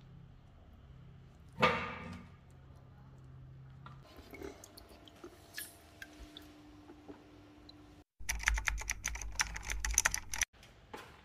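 A fast clatter of typewriter-style typing clicks for about two seconds near the end, the sound that goes with a typed-out title. Earlier there is one loud knock about a second and a half in, then scattered light clicks.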